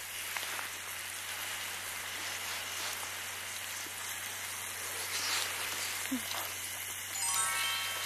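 Pork belly sizzling on a grill, a steady hiss. Near the end comes a brief tinkling chime.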